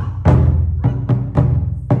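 Japanese taiko drums beaten in performance: a run of heavy, booming strikes about every half second, each ringing on deep and low.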